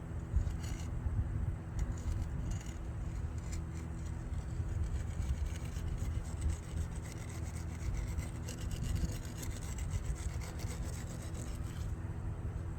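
Irregular scraping and rubbing strokes of a hand tool working wet concrete into brickwork, over a steady low hum.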